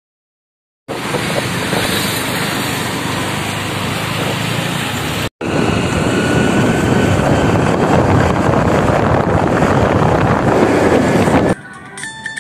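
Loud wind rumble on the microphone with vehicle noise, from a camera travelling along a road; it drops out briefly about five seconds in. Near the end it cuts to music with plucked strings.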